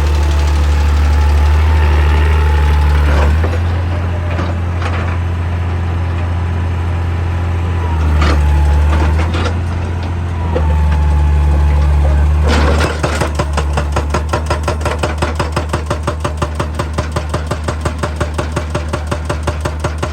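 Excavator's diesel engine running under changing load with a few sharp clanks, then, from about two-thirds of the way in, a hydraulic breaker hammering rock at a rapid, even rate of about six blows a second.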